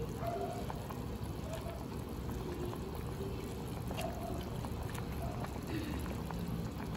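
Pho broth boiling in a stainless steel pot while rice noodles are stirred through it with tongs, with a few faint clicks.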